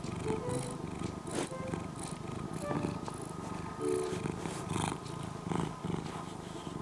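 A domestic cat purring steadily at close range while it is stroked on its back.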